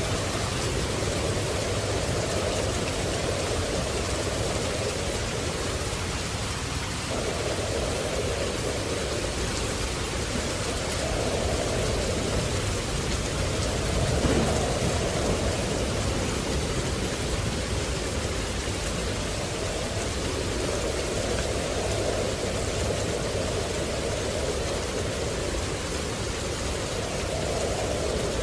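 Steady rain, a dense even hiss, with a lower rushing layer that swells and ebbs every few seconds and peaks briefly about halfway through.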